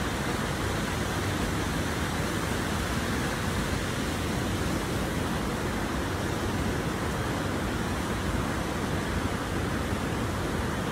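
Steady rush of a glacial river cascading white over rocks in a small waterfall.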